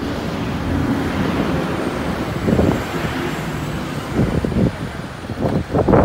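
Diesel engine of a boom crane truck running steadily with a low rumble, with short louder bursts of sound in the second half.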